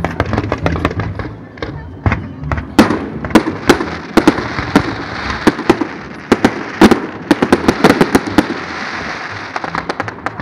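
Fireworks display: aerial shells and fountains going off in rapid succession, many sharp bangs and pops, with a steady hiss underneath through the middle.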